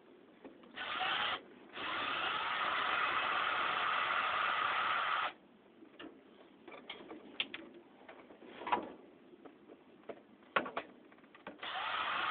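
Power drill/driver running in short spurts as it backs out screws, with a brief run, a longer run of about three and a half seconds, and another starting near the end. Small clicks and knocks of metal parts being handled come in between.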